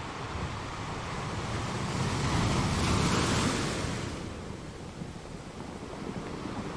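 Sea wave breaking on a rocky shore: a single surge of surf swells up about two seconds in, peaks around the middle and washes back down, over a steady background rush of water.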